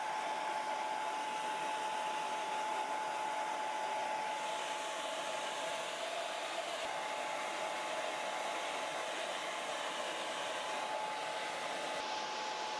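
Handheld hair dryer running steadily: an even rush of blown air with a steady whine over it.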